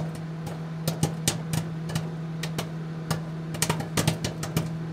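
A steady low electrical-sounding hum with irregular sharp crackling clicks over it.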